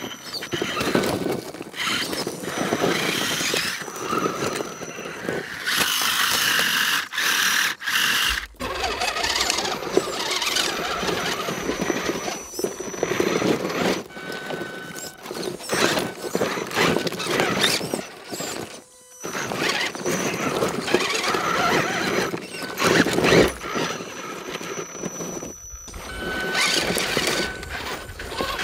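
Electric motors and geartrains of 1/10-scale RC rock-crawler trucks whining as they crawl over rock, with tyres scrabbling and stones scraping. The sound breaks off abruptly a few times.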